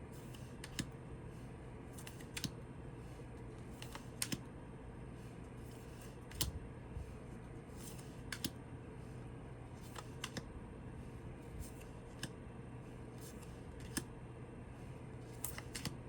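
Tarot cards being handled and flipped over one at a time, a light click or tap every second or two at an uneven pace, over a faint steady low hum.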